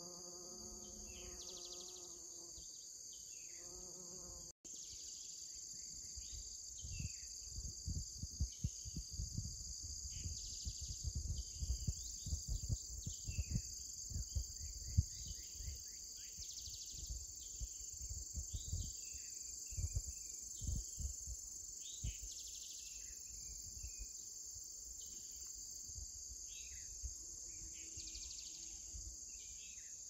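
A steady, high-pitched chorus of insects, with a bee's buzz close by over the flowering buckwheat for the first few seconds. After that come many short falling chirps and irregular low rumbles of wind buffeting the microphone.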